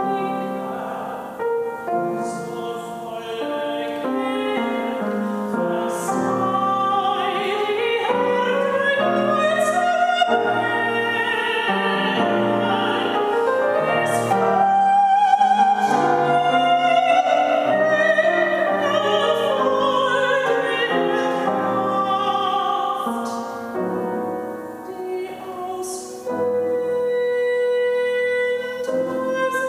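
Mezzo-soprano singing a classical art song with wide vibrato, accompanied by a grand piano. The voice swells to its loudest about halfway through, then falls back.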